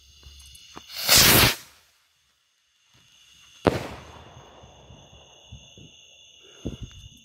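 A small firework rocket in flight: a loud rushing hiss about a second in, then a sharp bang as its shell bursts, with a tail that fades over about a second.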